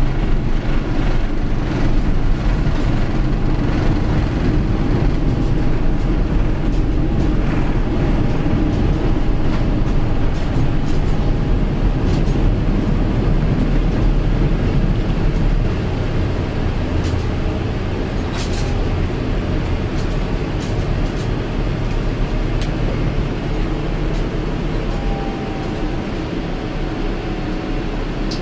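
Cabin noise of a Boeing 777-300ER's GE90-115B engines at takeoff power: a loud, steady roar with deep rumble through the takeoff roll, liftoff and initial climb, easing a little in level about halfway through. A few faint clicks sound in the second half.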